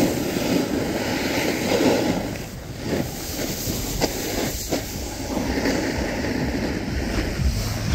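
A snowboard sliding and scraping over packed, groomed snow, making a continuous rushing noise that eases briefly about two and a half seconds in, with wind on the microphone.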